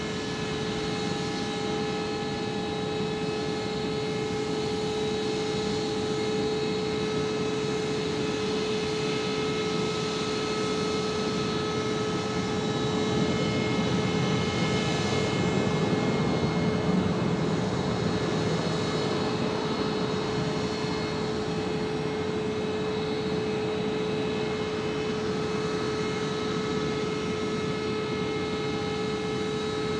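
Boeing 747-400 freighter's jet engines on final approach: a steady whine of several high tones over a broad rumble, which swells around the middle.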